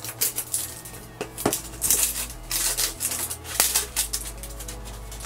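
Plastic shrink-wrap label being peeled and torn off a plastic surprise-egg capsule: a run of short, irregular crinkles and crackles of thin plastic film.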